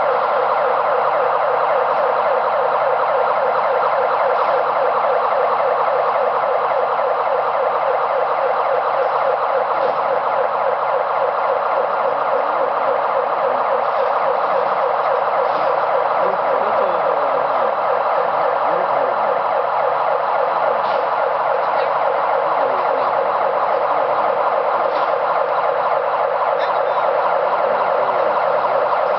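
Overhead crane's warning siren sounding continuously while the crane moves its test load, one steady unbroken siren tone with no pauses.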